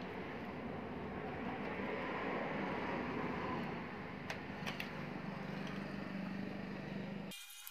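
Steady background hum and hiss with a few faint metallic clicks from a wrench working on a bicycle's bottom-bracket nut, about halfway through. The sound cuts off suddenly near the end.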